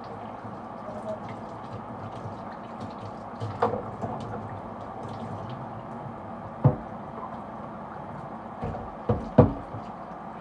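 Plastic humidifier parts being handled wet: a few sharp knocks and clatters with dripping water over a steady hiss, the loudest pair of knocks near the end.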